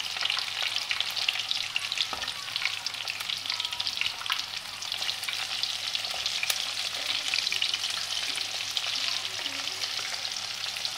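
Frozen thread-wrapped chicken pieces deep-frying in hot oil in a pan: a steady, dense sizzle made of many fine crackling pops.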